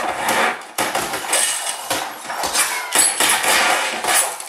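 Action-film sound effects played loud through a home surround-sound system: a rapid, irregular run of sharp hits and clattering, several a second.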